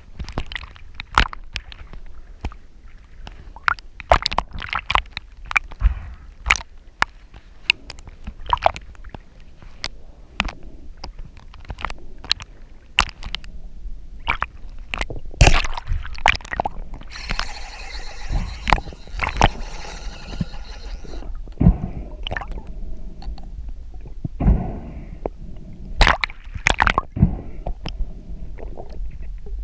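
Underwater sound picked up by a camera housing mounted on a speargun: irregular sharp clicks and knocks over gurgling, sloshing water, with a few seconds of hiss a little past the middle.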